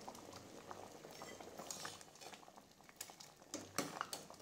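Sambar simmering faintly in a stainless steel pot, with soft clicks of a steel ladle against the pot as it is stirred; the clicks are sharper and more frequent in the last second and a half.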